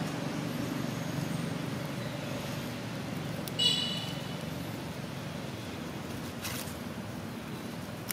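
Steady low outdoor rumble, with one brief high-pitched squeak about three and a half seconds in.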